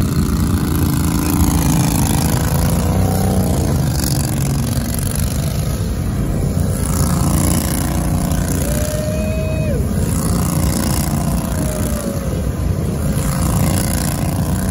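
Mud-bogging truck engine running, a loud steady low rumble, with a short higher tone about nine seconds in.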